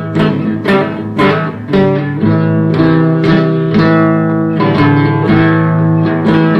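Guitar strumming chords in a steady rhythm, about two strokes a second, in an instrumental stretch of a blues song.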